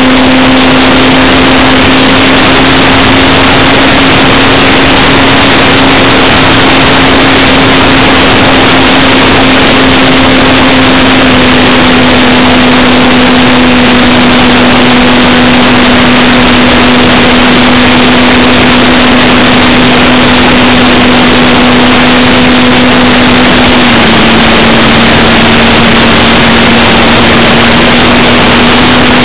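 Parkzone T-28 Trojan RC plane's electric motor and propeller droning steadily in flight, heard loud and rushing with wind from a camera on the plane. The drone's pitch steps down slightly near the end as the throttle eases.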